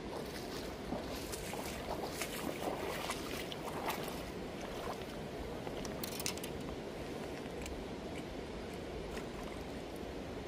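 Shallow river running steadily, with a run of splashes and sloshes over the first six seconds or so as waders step through the water and the landing net is carried and lowered into it.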